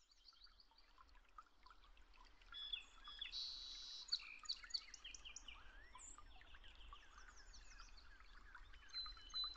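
Many small birds chirping and calling together, faint, with quick short chirps and whistled notes overlapping throughout, over a faint low hum.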